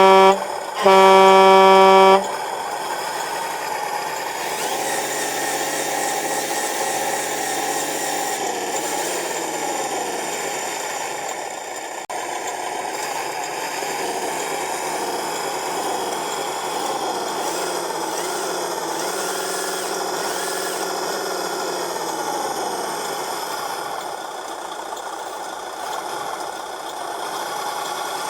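A radio-controlled model truck's horn toots, one blast ending just as another begins about a second in. Then the truck's motor and gearing run steadily, with a whine that shifts in pitch.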